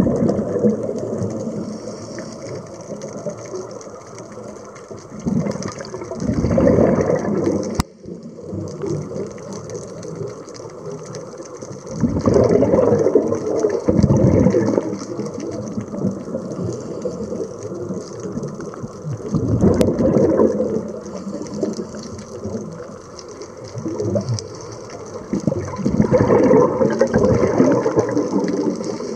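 Underwater breathing of a scuba diver on a regulator: rushes of exhaled bubbles lasting one to three seconds, about every seven seconds, with a quieter steady hiss between them.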